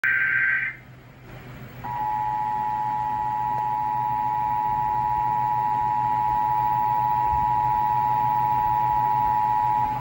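Emergency Alert System attention signal: the steady two-tone alert tone sounding from several TV sets at once, starting about two seconds in. It comes just after a brief screech of the alert's digital header data, which ends within the first second.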